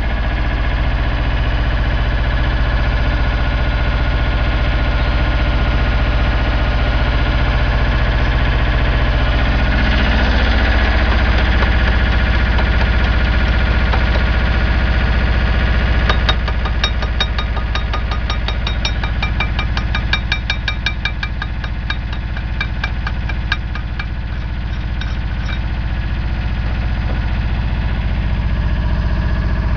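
MOSA TS300 welder generator's engine running steadily, its note shifting about ten seconds in. Over its hum, for about ten seconds in the second half, comes a quick regular clicking, about four clicks a second.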